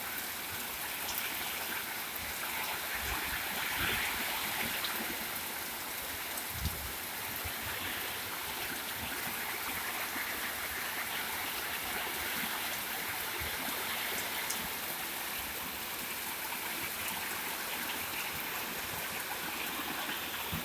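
Heavy rain pouring steadily, an even hiss with the odd louder drip or splash.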